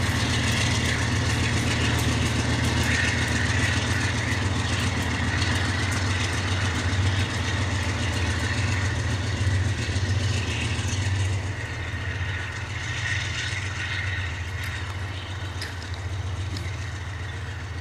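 Diesel-electric freight locomotive's engine running with a steady low hum. It gets a little quieter after about eleven seconds.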